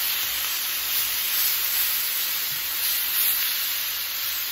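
Shredded beef and onions sizzling in a screaming-hot skillet, searing as they are spread across the pan: a steady, high hiss.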